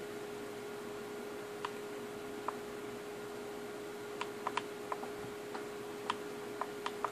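Scattered light clicks at irregular intervals, a few in the first half and more, closer together, in the second half, over a steady low hum and hiss.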